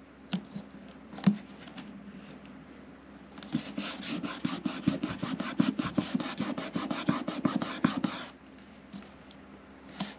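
A hand rubbing briskly back and forth over a hard plastic car door panel insert, about six quick strokes a second for some five seconds, pressing down a spot of glued-on covering that didn't stick. A couple of light knocks on the panel come before it.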